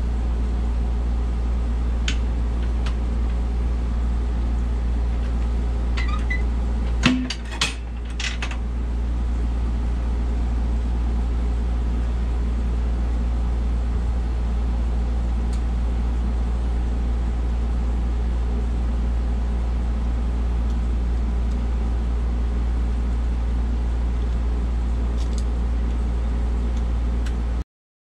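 Electric motor of a pedestal brake-lining rivet machine running with a steady low hum. About seven seconds in there is a sharp clank, and the hum dips and picks back up over the next couple of seconds, as if the machine took a stroke. A few light knocks are scattered around it.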